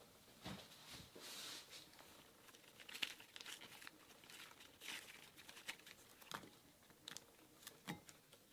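Shimeji mushroom clusters being torn apart by hand, pieces dropping into a glass bowl: quiet, scattered soft tearing and crackling with a few sharp ticks.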